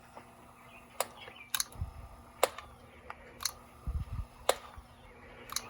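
Sharp mechanical clicks from the levers and controls of a late-1960s Dictaphone tape machine being worked by hand. There are about six clicks, roughly a second apart, with a few dull low bumps of handling in between.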